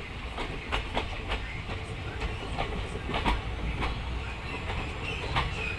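Passenger train running, heard from a coach window: a steady low rumble under irregular sharp clacks of the wheels over the rail joints.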